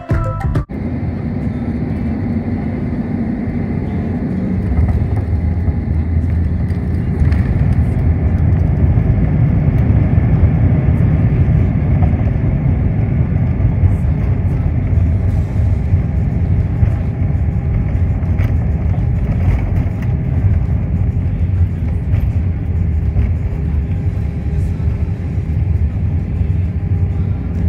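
Airliner cabin noise heard from a seat over the wing while the jet moves along the runway: a steady low rumble of engines and wheels that grows louder about five seconds in and holds.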